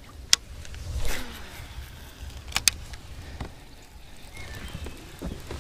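Wind rumbling on the microphone, with a sharp click near the start, a brief swish about a second in, and a quick double click a little later, the sounds of casting a rod and reel from a kayak.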